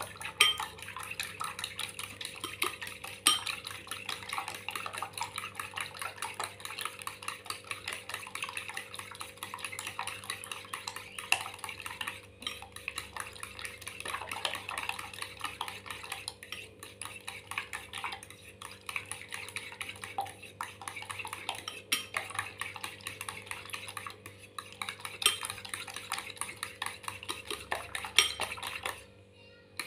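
Raw eggs being beaten in a ceramic bowl with a metal utensil: rapid, steady clicking of the utensil against the bowl, with a few louder knocks, stopping just before the end.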